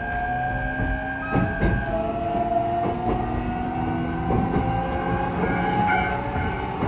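E129 series EMU's Toyo IGBT VVVF inverter and traction motors accelerating: a whine slowly rising in pitch, with a steady high tone that drops out about two seconds in. The wheels click over rail joints.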